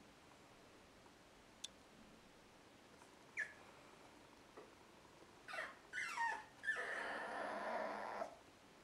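A young puppy gives a single short yelp, then a quick run of falling yips, then a drawn-out yell lasting about a second and a half near the end.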